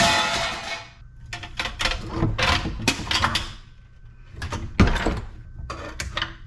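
Metal parts of a scrapped light fixture being handled, clattering and scraping in a run of strokes, with a sharp knock about five seconds in.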